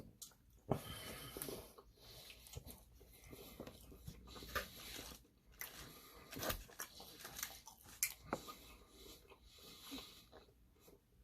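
A person chewing and biting food close to the microphone, with soft, irregular mouth clicks and small crunches.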